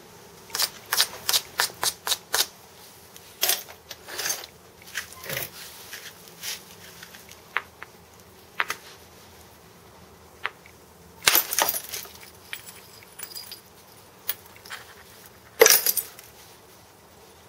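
Hammerstone striking the edge of a large piece of Fort Hood flint to knock spalls off: sharp stone-on-stone clicks, a quick run of light strikes at the start, then scattered heavier blows, the loudest near the end.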